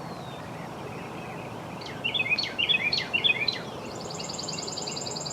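Songbirds singing in the open: a burst of quick chirpy notes about two seconds in, then a fast, even, high-pitched trill from about four seconds on.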